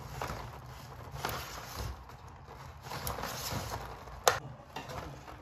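Clear plastic egg carton being handled and opened: crinkling and rustling plastic in short bursts, with one sharp snap a little over four seconds in.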